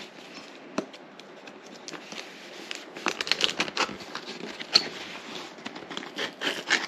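Packing tape being cut and pulled off a cardboard box, with the box handled: one sharp click about a second in, then a busy run of scratching, tearing and crackling from about three seconds on.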